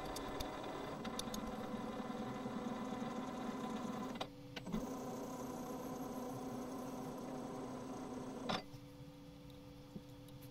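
Small CNC lathe's spindle running while a twist drill in the tailstock bores into a plastic knob, a steady machine hum with a short break a little over four seconds in. The spindle stops about 8.5 seconds in, leaving a quieter steady hum.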